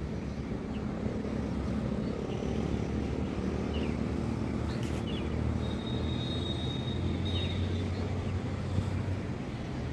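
Hair dryer blowing steadily on wet hair, an even running noise with a low hum.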